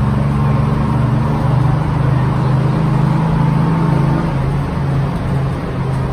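The engine of a 1957 GMC transit bus drones steadily, heard from inside the passenger cabin over road noise. From about four and a half seconds in, the drone begins to pulse regularly.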